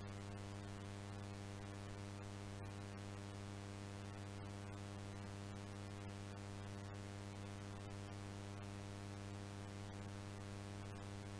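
Steady electrical hum with a stack of overtones over a faint hiss, with scattered faint clicks, from the audio track of a VHS tape being played back.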